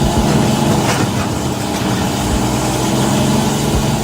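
Heavy vehicle engine idling steadily.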